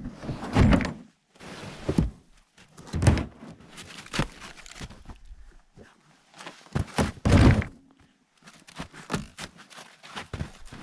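A series of heavy thumps and knocks at uneven intervals, with quieter scuffing and rustling between them; the loudest come about a second in, about three seconds in and near the middle.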